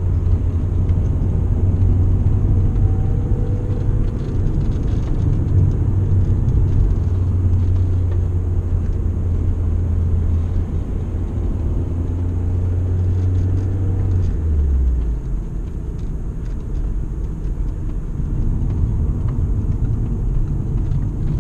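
BMW E36 3 Series engine and road noise heard inside the cabin, a steady low drone at constant engine speed. About fourteen seconds in the drone drops to a lower pitch and gets a little quieter as the revs fall.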